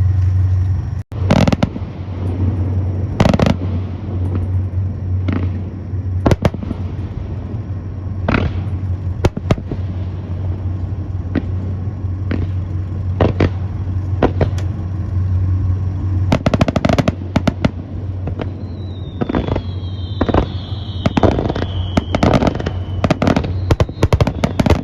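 Aerial fireworks bursting one after another: booms and cracks that come thicker in the second half, over a steady low hum. Near the end a few whistles fall in pitch.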